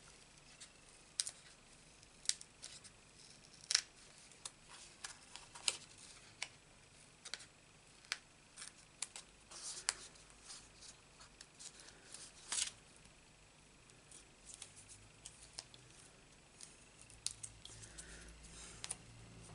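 Paper-craft card being handled and its stamped layer on foam dimensionals pulled and re-set: irregular small clicks, taps and paper rustles, the loudest about 4 and 12 seconds in.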